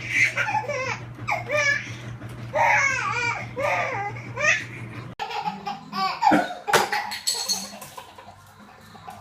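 Baby laughing in repeated bursts over a low steady hum; about five seconds in it cuts abruptly to another clip with a few shorter sounds, quieter toward the end.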